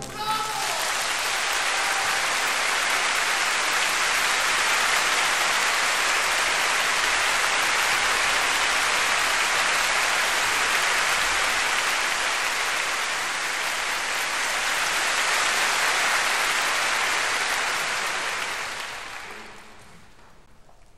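Concert-hall audience applauding after a symphony's final chord: dense, even clapping that fades out near the end.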